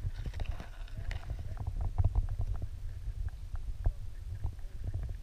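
Muffled underwater noise picked up by a camera held beneath the river surface: a dense low rumble of moving water against the camera, with irregular small clicks and knocks.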